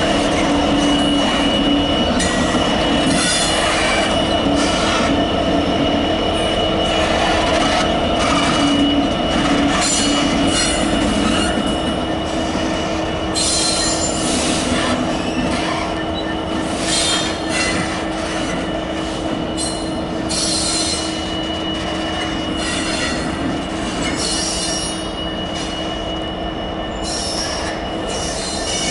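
Colas Rail Freight Class 66 diesel locomotives passing close by, their two-stroke diesel engines running, with a steady high wheel squeal and repeated knocks and clanks from the wheels on the track. The sound eases off a little toward the end as they move away.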